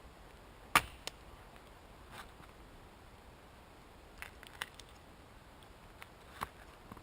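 A few short, sharp clicks and light knocks of small materials being handled, with the loudest about a second in and a cluster of smaller ones later.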